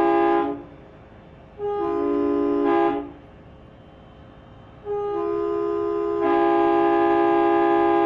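Multi-chime train air horn, run off an air compressor, sounding a chord in blasts. A long blast cuts off about half a second in, a short blast follows about a second later, and a long blast starts about five seconds in and holds, its lower notes joining more than a second after the first ones.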